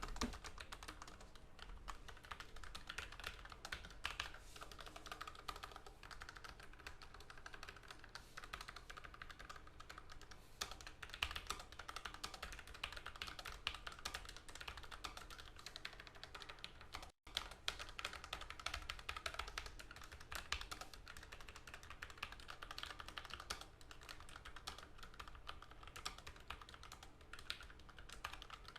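Typing on a Logitech MX Mechanical Mini keyboard with tactile quiet (brown) switches: a steady, fast run of keystroke clicks. There is a brief, sudden gap about 17 seconds in.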